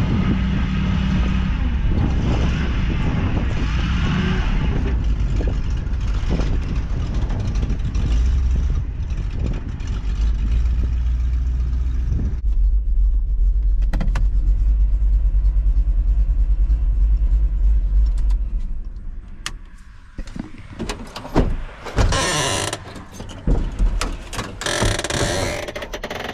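A vehicle's engine running with a steady low rumble, dying away about 19 seconds in. After that come scattered clunks, knocks and rattles of metal handling.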